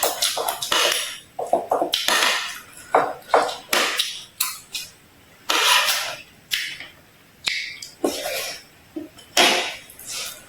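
Close-miked crunching and chewing of crisp food, in irregular loud crunches about one a second with short gaps between.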